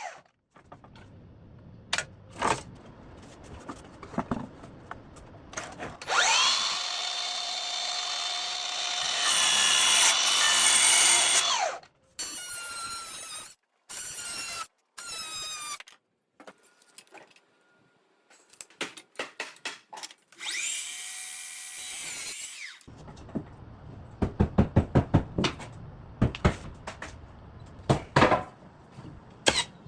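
Power tools at work on wooden stair treads. An electric tool's motor whines for about six seconds and then winds down, several short bursts follow, and a second brief run also winds down. Near the end comes a quick series of sharp knocks.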